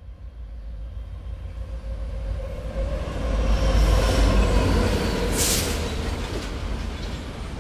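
Train rumbling on the rails, growing louder toward the middle and then easing, with a faint squeal of wheels and a short sharp hiss about five and a half seconds in.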